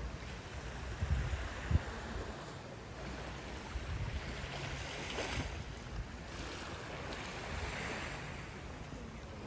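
Small lake waves washing against shoreline rocks, rising and falling in soft swells, with wind rumbling on the microphone in gusts about a second in.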